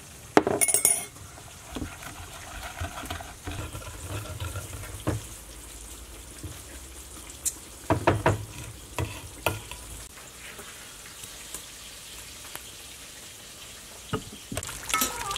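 Wooden pestle stirring and knocking in a mortar as seasonings are worked into a garlic-and-chili dipping sauce, with a few irregular sharp knocks over a low steady background.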